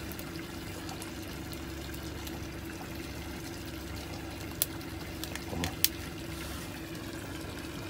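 Steady hum with trickling water behind it. Two sharp clicks, about four and a half and six seconds in, come as a rubber band is wound and snapped around a blue swimmer crab's claw.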